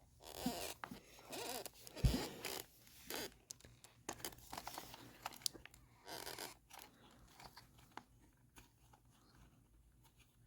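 Hands handling plastic RC car parts and wiring: short scraping and rustling bursts, with a sharp knock about two seconds in, fading to faint clicks in the second half.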